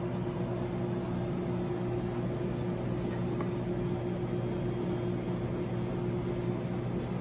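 Steady mechanical hum of kitchen machinery, with a constant low drone.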